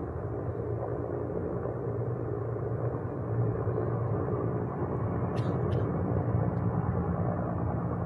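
Erickson S-64 SkyCrane heavy-lift helicopter hovering low over water with its snorkel hose down to refill its tank, a steady deep rotor and turbine rumble.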